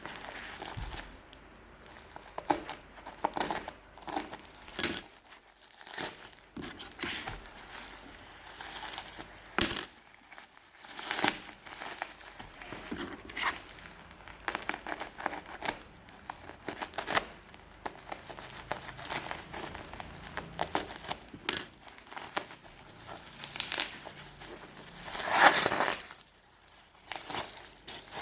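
Packaging being handled and opened: irregular crinkling and rustling with small clicks and taps, and a longer, louder rustle or tear near the end.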